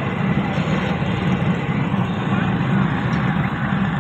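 Potato finger chips deep-frying in a large pot of oil over a burner: a steady, dense sizzle with a low rumble underneath.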